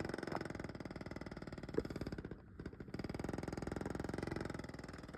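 A window vibrating in the wind, giving a rapid, even buzzing flutter that starts suddenly, drops away briefly near the middle and comes back. The noise persists with the window screen removed, so the screen is not its cause.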